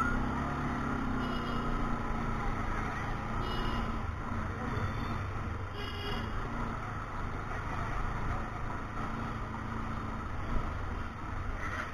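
Bajaj Pulsar NS200's single-cylinder engine running steadily.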